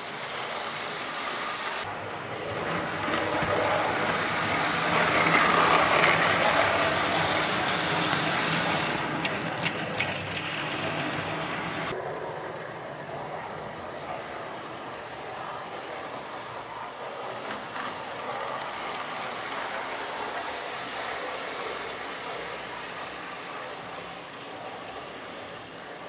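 Model railway locomotive, a class 66 diesel model, hauling a train of coal-loaded wagons around the track: a steady whirring, rattling run of motor and wheels on rail. It grows louder about four to seven seconds in as the train passes close by, with a few sharp clicks around ten seconds in.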